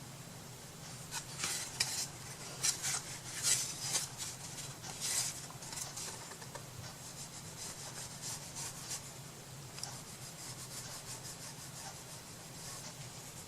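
Quick hand-worked rubbing strokes on a paper-and-wood craft piece, a rapid run of scrapes that is loudest for the first few seconds and then carries on more lightly.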